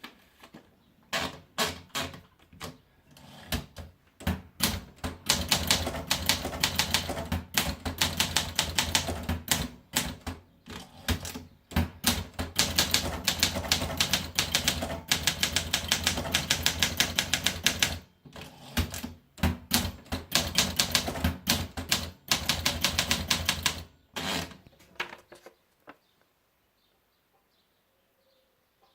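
Olympia SM8 portable manual typewriter being typed on: fast runs of key strikes, broken by a few short pauses, stopping about 25 seconds in.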